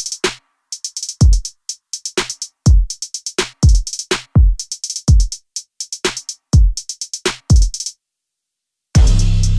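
Background music: an electronic drum-machine beat with deep kicks that drop in pitch and quick hi-hat ticks. It stops about eight seconds in, and after a short silence a fuller track with sustained bass notes starts near the end.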